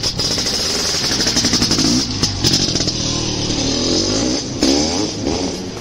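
An engine revving over and over, its pitch rising and falling several times.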